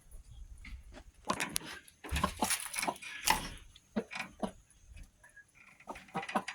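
Chickens clucking with short calls, amid scattered knocks and rustles that are loudest in the first half.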